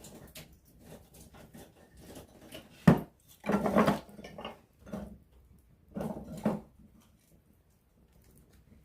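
Wood campfire burning up close: sparse crackling, one sharp loud pop about three seconds in, then two short bursts of denser crackling.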